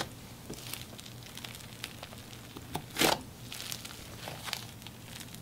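Thick clay-filled slime being stretched and pulled apart by hand, crackling with many small sizzly pops, with a louder tearing hiss about three seconds in.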